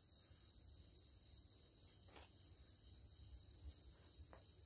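Near silence: a faint, steady high-pitched drone of background noise, with two faint soft ticks about two and four seconds in.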